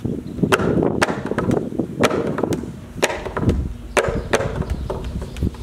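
Ipu heke, a Hawaiian double-gourd drum, beaten in a hula rhythm: sharp slaps mixed with deeper thumps, about two strokes a second.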